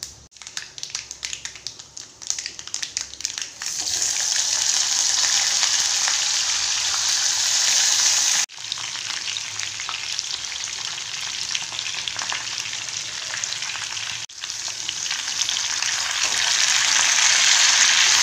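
Hot oil in a metal kadai crackling and spluttering, then a loud steady sizzle as sliced potatoes fry in it. The sizzle breaks off abruptly twice and swells again near the end.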